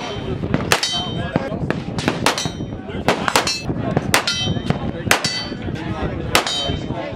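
Single shots from a Zenith Firearms MP5-style 9mm pistol, about nine at uneven intervals, each followed by the ringing clang of a hit steel target.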